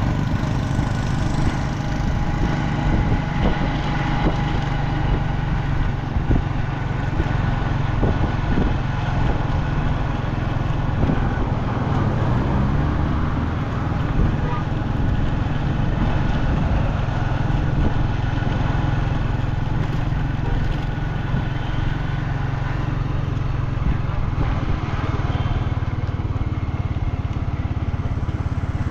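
A vehicle's engine running steadily while driving, heard from on board with road noise.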